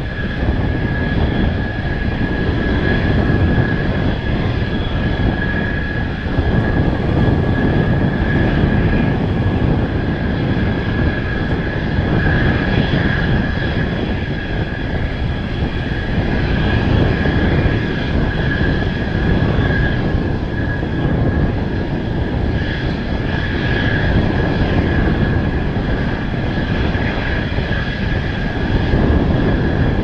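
General Electric F110 turbofan engines of Mitsubishi F-2 fighter jets running at taxi power: a steady high whine over a continuous low rumble, with wind buffeting the microphone.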